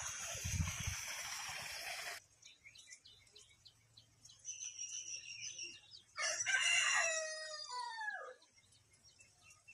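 Splashing water that stops abruptly about two seconds in, then small birds chirping and a rooster crowing once, a long call that falls in pitch at the end.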